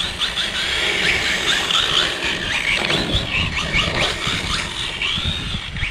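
Brushless RC drift car's motor and drivetrain whining, the pitch gliding up and down in quick sweeps as the throttle is blipped through slides. Wind buffets the microphone with a low rumble underneath.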